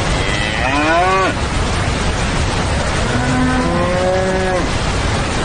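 Cattle mooing: two long calls, the first rising in pitch about a second in, the second about three seconds in, over a steady rushing noise.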